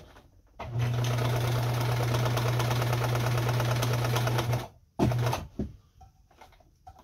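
Kenmore 158.17740 sewing machine running steadily as it straight-stitches through denim, its motor hum under a rapid needle clatter. It starts about half a second in, stops about four and a half seconds in, then makes one short burst about a second later, followed by a few faint clicks.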